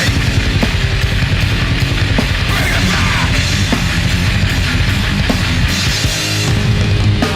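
Loud, fast heavy metal/punk rock background music with distorted guitars and a driving drum kit beat.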